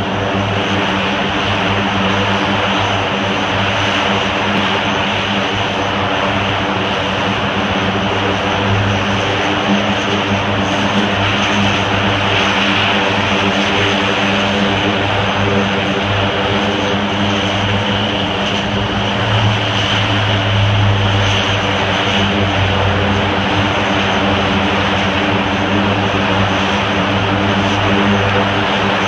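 Lockheed C-130 Hercules four-engine turboprop transports taxiing in a line, engines and propellers running with a steady low drone under a high whine. It grows a little louder about twenty seconds in.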